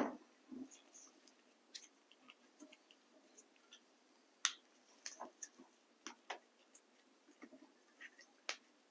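Scattered small metallic clicks and ticks as a hex key turns a small bolt into the controller cover of a Bafang M600 mid-drive motor, threading it down to snug. A few louder clicks come about halfway through and near the end.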